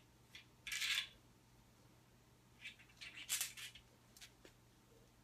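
Small metal washers being worked off the windage-tray mounting studs of an engine block: faint short scrapes and light clicks, one about a second in and a longer cluster around three seconds in.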